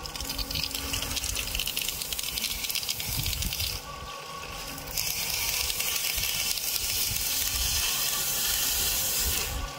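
Water hissing and spraying under pressure from a small electric water pump's outlet pipe as a hand tries to close off the pipe end: the pump builds strong pressure against the blockage. The spray eases briefly about four seconds in, then hisses again at full force.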